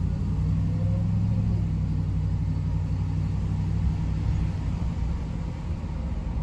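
Car engine and road rumble heard from inside the cabin of a moving vehicle: a steady low hum with a continuous rumble of tyres on the road.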